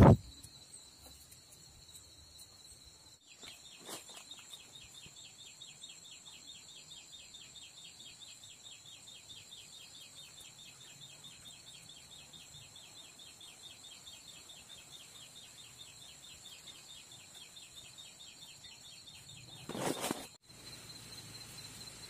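Steady high-pitched shrilling of forest insects, with a fast, even train of short high chirps that starts about three seconds in and stops near the end. A sharp click at the very start and a brief noisy burst near the end.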